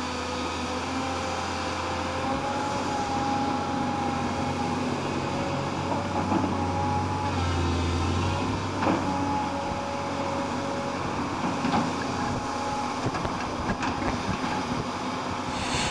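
Tracked hydraulic excavator's diesel engine running, its pitch drifting up and down as the arm and bucket work, with a few knocks in the second half as it digs.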